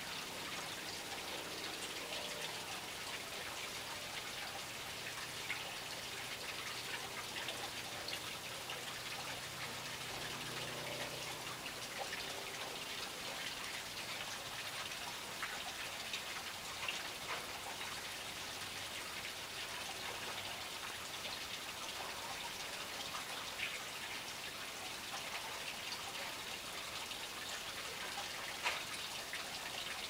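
Small garden fountain's water splashing and trickling steadily, with a few sharper splashes standing out.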